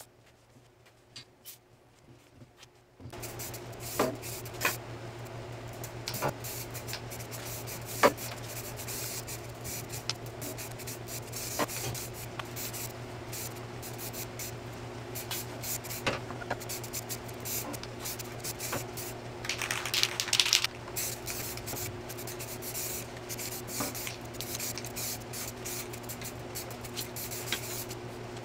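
Aerosol spray paint can hissing in short bursts, with scattered clicks and knocks, as a go-kart's steel tube frame is spray-painted. A steady low hum comes in about three seconds in and stays under it.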